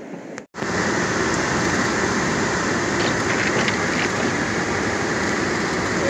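Steady cabin noise of a vehicle driving on a snow-covered road: engine and road noise heard from inside the car. It starts after a brief silent break about half a second in.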